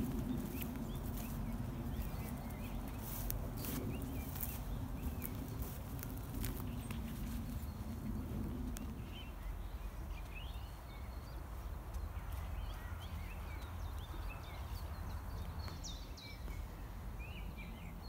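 Footsteps swishing and crunching through dry grass for the first half, stopping about halfway through. Songbirds, among them a Eurasian blackbird, sing with short chirping phrases, thickening in the second half.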